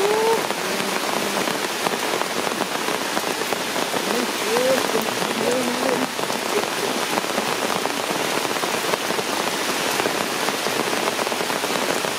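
Steady rain falling, an even hiss of drops on leaves and rock, with a few short rising squeaks in the first six seconds.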